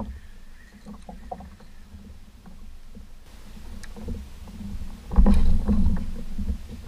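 Choppy water slapping against a kayak's hull, with a louder low rumble for about a second, about five seconds in.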